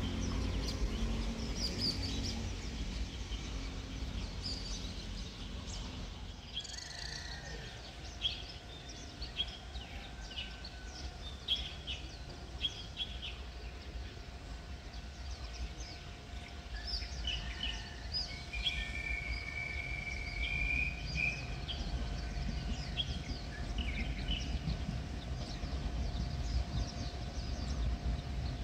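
Small birds chirping and calling repeatedly over a steady low rumble, with a faint steady whine joining about seven seconds in.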